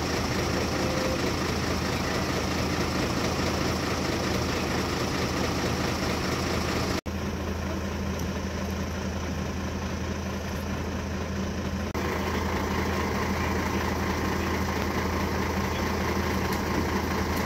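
Fire engine's diesel engine running steadily with a low hum, cut off briefly once about seven seconds in.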